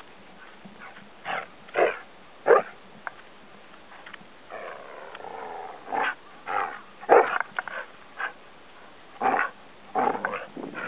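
Samoyed vocalising in play with a cloth in its mouth: a string of short, sharp calls and one longer drawn-out call about four and a half seconds in.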